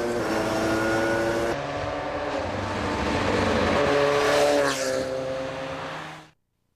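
Lancia 037's supercharged four-cylinder engine running at speed, its revs climbing and then dropping back about five seconds in. The sound cuts off suddenly near the end.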